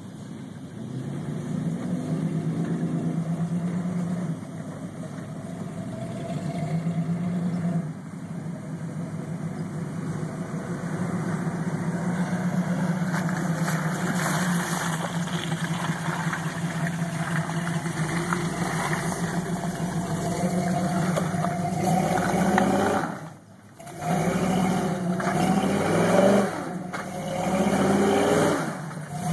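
A Chevy K5 Blazer's engine pulls steadily as the truck drives into a mud hole. Near the end it revs up and down several times while its tyres churn in the mud.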